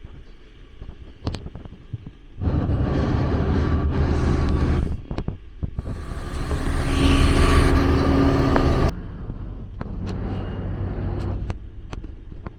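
Motor vehicle engines passing close on a street, in two loud passes. The second is the loudest and cuts off suddenly about nine seconds in. Fainter traffic noise and a few light clicks come before and after.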